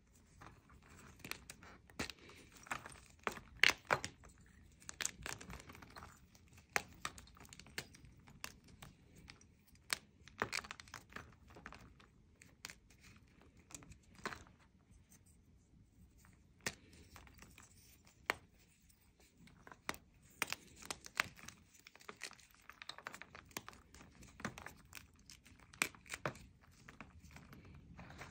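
Blocks of gym chalk crushed and crumbled by hand in a plastic tub: irregular dry crunches and sharp snaps as pieces break, with soft crumbling of powder between.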